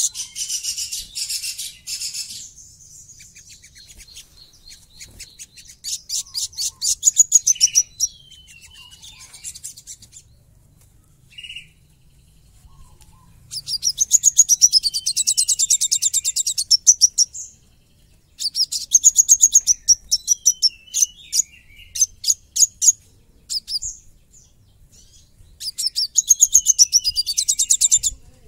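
Male olive-backed sunbird in full song: bursts of very rapid, high, harsh chattering notes, the coarse rapid-fire song that keepers prize, several bursts with short pauses between.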